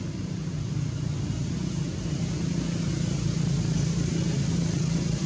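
Steady low engine rumble of a motor vehicle, growing a little louder partway through.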